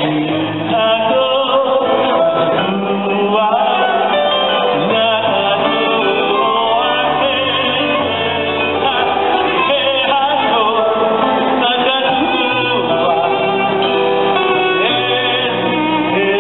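A male singer singing live with a band through the PA at a concert.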